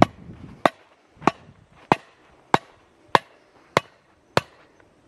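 A hammer repeatedly striking the top of a log set in a ring-stand kindling splitter, driving the wood down to split it. There are eight sharp, even knocks, a little over half a second apart.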